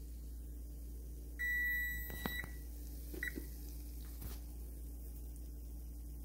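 An electronic beep, one steady high tone lasting about a second, followed by a couple of clicks and a short second beep. Under it, a faint steady hiss of donuts frying in oil in a cast iron skillet.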